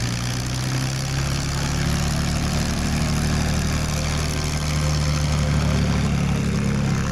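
P-51D Mustang's Packard Merlin V-12 engine and propeller running at low taxi power: a steady, deep drone.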